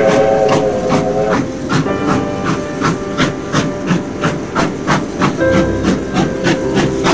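Steam locomotive exhaust chuffing at a steady beat, about three hissing chuffs a second.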